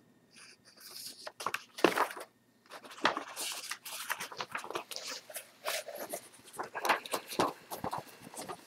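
Pages of a stapled paper instruction booklet being flipped and handled: a run of irregular rustles and crinkles, with the loudest paper snap just under two seconds in.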